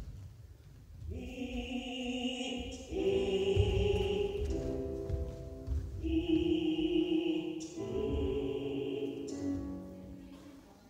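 Choir singing slow, long-held chords that change every second or two, coming in about a second in and fading near the end. Low thumps sound underneath.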